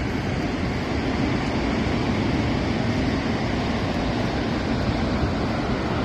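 Steady, loud rush of water from Montmorency Falls, heard close to the base of the falls.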